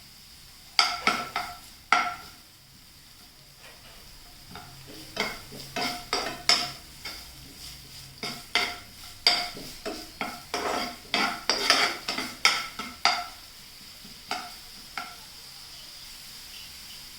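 Sliced onions and chillies frying in hot oil in a pan, a steady sizzle, while a spatula scrapes and knocks against the pan again and again as they are stirred. The stirring stops about 15 seconds in, leaving only the sizzle.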